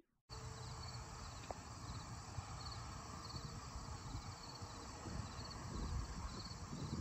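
Outdoor field ambience: wind rumbling and buffeting on the microphone, with insects chirping faintly in a steady repeating pattern, about two chirps a second.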